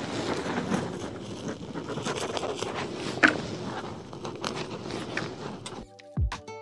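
Gloved hand pulling dead lamb's ear foliage out of a mulched bed: dry leaves and mulch rustling and scraping, with a sharper crackle about three seconds in. The rustling stops near the end, when background music with plucked guitar notes begins.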